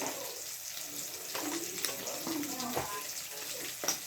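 Water running from a tap, with a few sharp knocks of things being handled, and a faint voice in the background.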